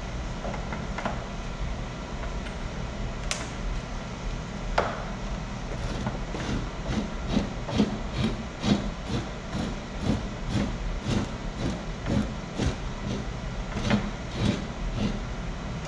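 Two-handled fleshing knife scraping a wolf hide on a fleshing beam in quick, even strokes, nearly three a second, starting about six seconds in. A sharp click or two comes before the strokes begin, over a steady low hum.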